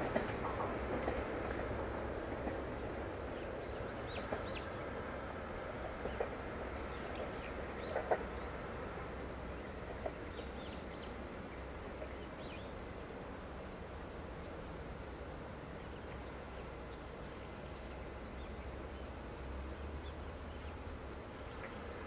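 A Jōmō Electric Railway train rumbling away into the distance, its sound dying down over the first several seconds, with a few sharp clicks about four, six and eight seconds in. Wild birds chirp in short, high calls throughout.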